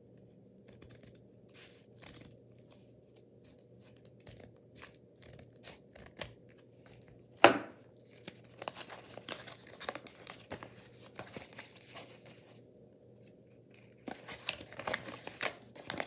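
Scissors snipping through a folded square of paper in a run of small cuts, with one sharp, louder click about halfway. After that, the paper rustles and crinkles as it is handled and unfolded.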